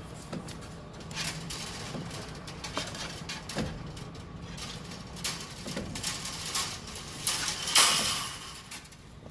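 Baling wires being slid through the channels of a baler's ram: irregular metallic scrapes and clinks, with a longer, louder scrape near the end.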